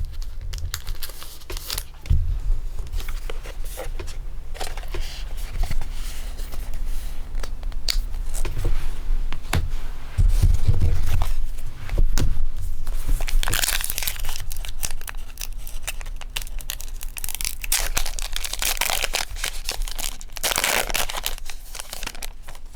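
Rustling, crinkling and tearing of foil Pokémon booster pack wrappers and handling of the cards, with many small clicks. There are louder stretches of crinkling about 13 seconds in and again about 19 seconds in.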